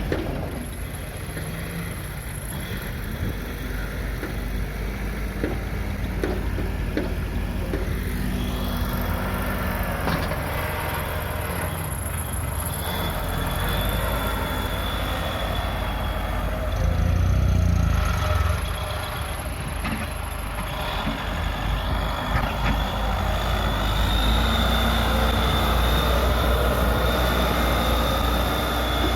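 Case 580 Super L backhoe loader's diesel engine running under load, its revs and loudness rising briefly in the middle and again near the end, with scattered metallic knocks and a thin steady high whine.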